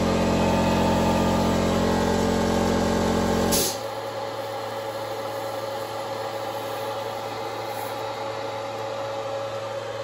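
Steady machinery hum from a CNC router setup, with a loud low drone that cuts off abruptly about a third of the way in. A quieter steady hum with one steady tone is left after it.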